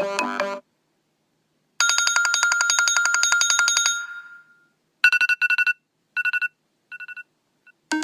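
iPhone ringtones played one after another. A melodic ringtone ends just after the start. After a pause of about a second comes a rapid, trilling bell-like ring lasting about two and a half seconds, fading out. Then come short bursts of fast high beeping, each burst shorter than the last.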